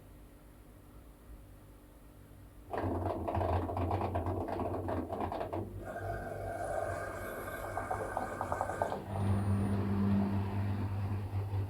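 Washing machine starting up again after a quiet pause in the wash: a steady motor hum comes in suddenly about three seconds in over a noisy churning sound, and its tone shifts twice.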